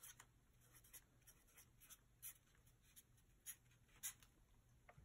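Sharpie felt-tip marker writing on paper: faint, short strokes scattered throughout as a word is written out.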